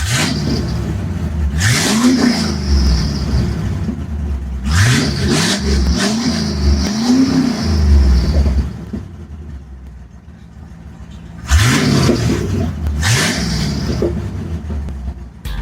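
Off-road vehicle's engine revving in repeated bursts, the pitch climbing and dropping each time: once, then three quick revs, then two more after a quieter lull.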